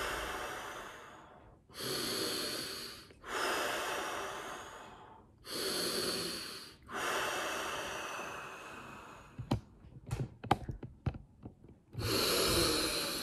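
A man taking slow, deep, audible breaths in and out, the deep-breathing phase of a Tummo-style breathing round. About three breaths are heard, each one to two seconds long, then a couple of seconds of sharp clicks and taps, then another deep breath near the end.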